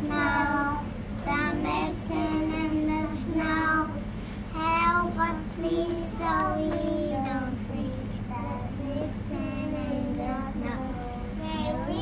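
Young children singing a song, with held, wavering notes.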